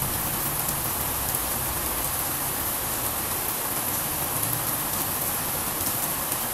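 Steady rain falling, an even rushing noise with faint tiny drop ticks.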